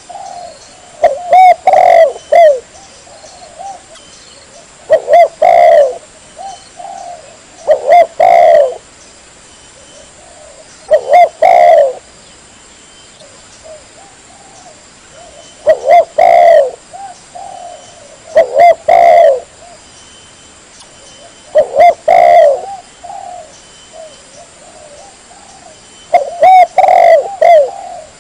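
Spotted dove (tekukur) cooing: a loud phrase of several low coos, repeated about every three seconds.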